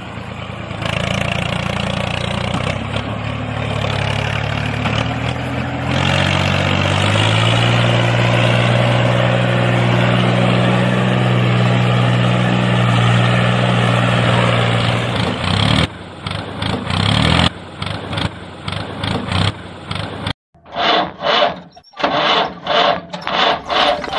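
Engine running steadily with a low drone, its pitch stepping up about six seconds in. After about sixteen seconds it turns uneven and ends in a quick, even chugging.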